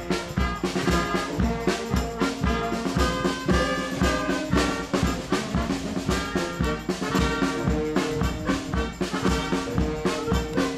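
Wind band playing, brass to the fore, over a steady beat about twice a second.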